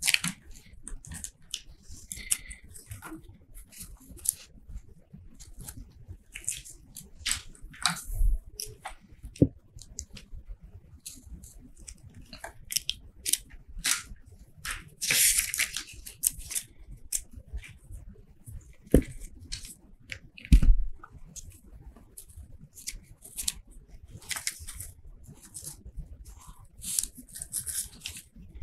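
Paper rustling and short rasps as thread is drawn through and tied off on a hand-sewn paper notebook, with a few knocks on the tabletop, the loudest about twenty seconds in.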